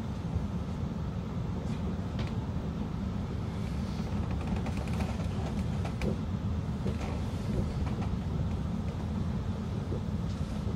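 Steady low rumble inside the passenger cabin of an Italo high-speed train rolling slowly through a station, with faint light clicking in the middle.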